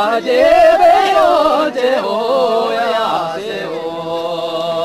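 A voice singing a chant-like melody, the pitch winding up and down, then settling into one long held note about three and a half seconds in.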